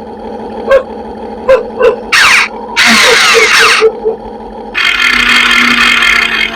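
RC excavator's electric motors and hydraulic pump whirring in bursts as the arm and tracks are worked, the pitch shifting within each burst, the longest burst near the end. Between the bursts come a string of short, high yaps like a small dog barking.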